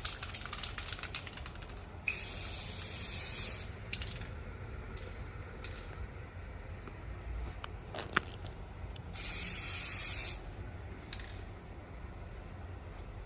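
Spray hissing in two steady bursts of about a second and a half each, one about two seconds in and one about nine seconds in. A fast run of clicks comes at the start, and a single sharp click falls just before the second burst.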